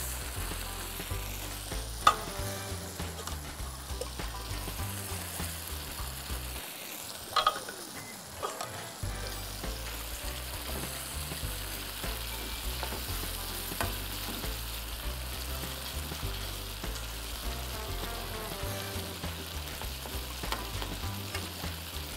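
Pepper-based vegetable sauce sizzling in a frying pan with very little oil while a metal spoon stirs it, with a few clinks of the spoon against the pan. The watery pepper makes it a gentle steaming sizzle rather than a hard fry.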